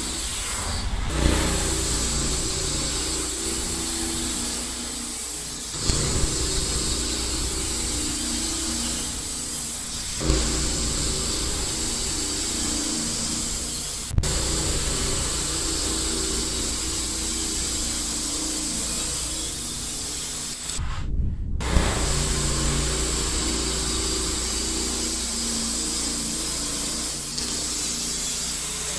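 Sawmill's engine running steadily under load while the blade cuts through a poplar log, with a short break partway through.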